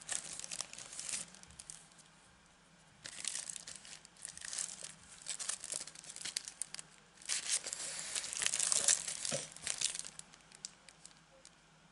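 Thin plastic packaging of a clear stamp sheet crinkling as it is handled, in three spells with the loudest near the end, then a few light clicks.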